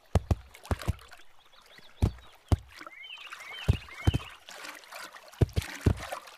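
Cartoon water plops: about ten short, irregular bloops from animals bobbing up in a pond. A few bird chirps come near the middle.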